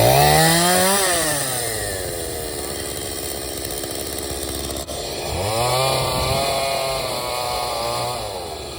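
Chainsaw cutting through a wooden windmill shaft. The motor revs up sharply at the start, then its pitch sinks and holds lower while it cuts. It revs up again about five and a half seconds in and drops back near the end.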